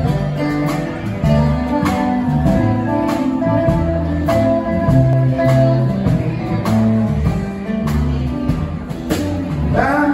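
Live rock band playing an instrumental passage: electric and acoustic guitars over electric bass and a drum kit keeping a steady beat. A singing voice comes in at the very end.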